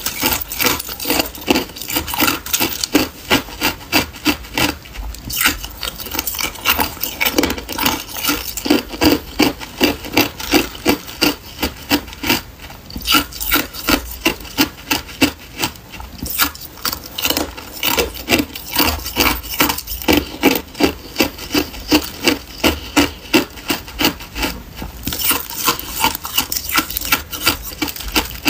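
Hard ice cubes crunched and chewed between the teeth, a steady rhythmic crunching at about two to three bites a second.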